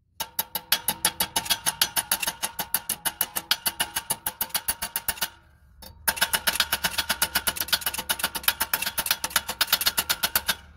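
Rapid metal-on-metal tapping with a screw head along a bend line on a small sheet-steel patch held in a vise, to fold its edge down; about seven or eight ringing taps a second, in two runs with a short break about five seconds in.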